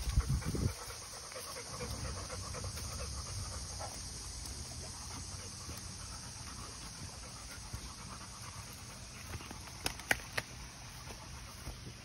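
Pit bull panting steadily while sniffing along the ground, with a few low thumps in the first second and a few sharp clicks about ten seconds in.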